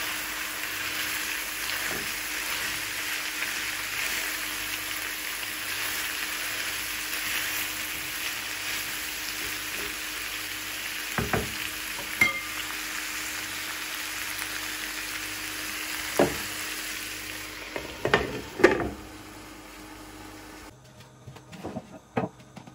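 Minced chicken and sliced courgettes sizzling steadily in a non-stick frying pan, stirred with a wooden spatula, with a few sharp knocks of the spatula against the pan in the second half. The sizzle falls away near the end, leaving a few light taps.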